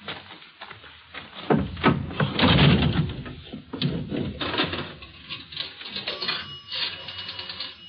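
Radio-drama sound effects of a coin telephone: handling clunks and a coin going in, then a run of rapid, evenly spaced clicks from the dial, about ten a second, in the second half.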